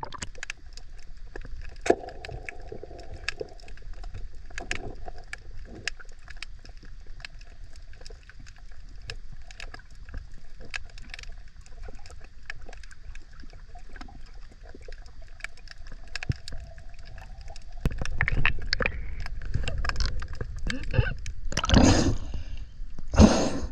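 Muffled underwater sound of a diver in murky water, with many small scattered crackling clicks. From about two-thirds of the way through the water sound grows louder and sloshier, and near the end two loud splashes come as the camera breaks the surface.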